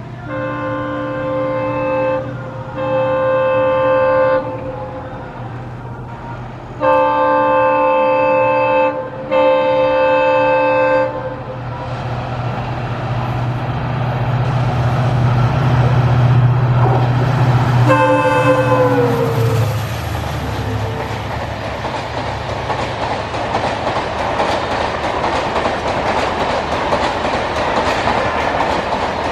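Indian Railways WDP4D diesel locomotive approaching. Its multi-note horn sounds four long blasts in two pairs, and its EMD two-stroke engine drone grows louder. About 18 seconds in, one last shorter horn blast drops in pitch as the locomotive passes, then the LHB coaches roll by with a steady rush and clickety-clack of wheels.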